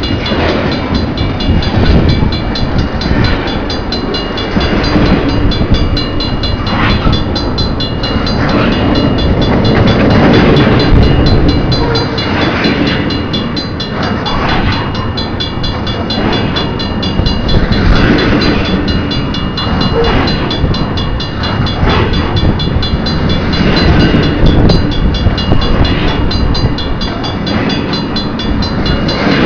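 CN train rolling past over a level crossing, a steady loud rumble with the wheels clattering over the rails.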